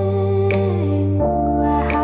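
Soft background music: sustained chords that change about a second in, with a light tick twice.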